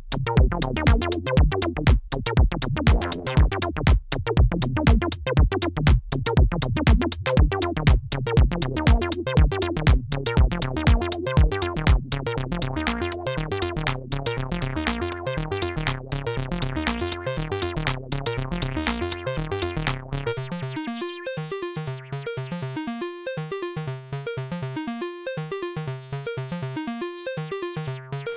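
Behringer MS-1 analog monosynth playing a fast repeating sequenced bass pattern, recorded dry with no effects, its tone shifting as its sliders are moved. For the first twelve seconds a strong accent lands about twice a second; near the end the deepest bass drops away and the notes turn thinner.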